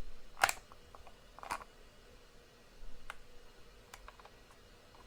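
A few sharp plastic button clicks, spaced unevenly. The first two, about a second apart, are the loudest; lighter clicks follow later.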